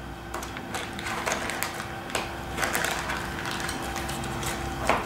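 Small clear plastic bags crinkling and rustling as they are picked up and handled on a table, in short irregular crackles over a faint steady hum.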